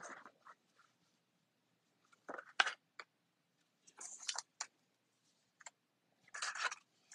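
Paper and cardstock being handled: short rustles, slides and light taps as pieces are moved and pressed down on a craft mat, coming in a few separate bursts.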